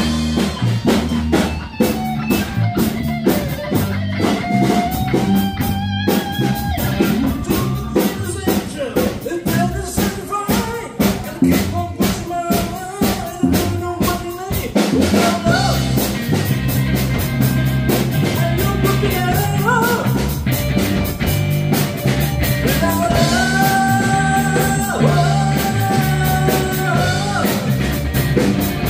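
Live rock band playing: electric guitars over a drum kit, with a man singing into the microphone.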